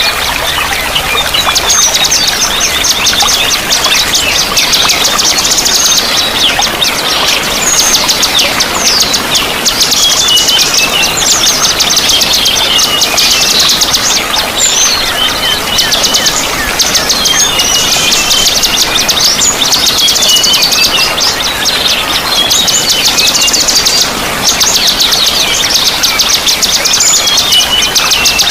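Several songbirds singing over steadily running water: dense, rapid high chirps and trills come in runs of a second or two with short gaps between them.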